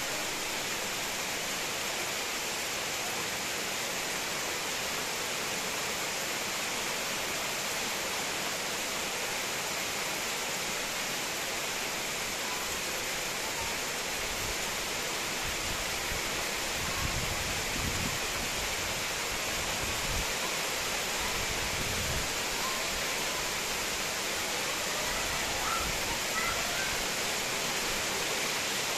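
Heavy rain falling steadily on coconut palms and dense tropical foliage, an even hiss throughout. A few brief low rumbles come and go in the middle.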